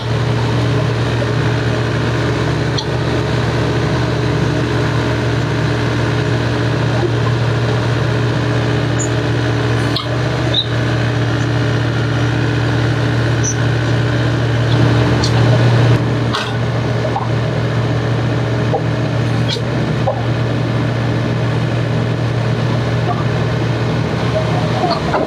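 A heavy diesel engine running steadily, with a few sharp knocks and clanks of machinery at intervals. It grows louder briefly about fifteen seconds in, then eases back.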